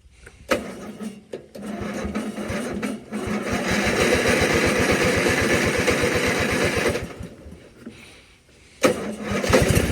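The electric starter of a 1997 MTD Yard Machines riding mower cranks the engine, with no choke, in a rapid, even chugging for about six seconds without catching. It stops, then starts cranking again near the end.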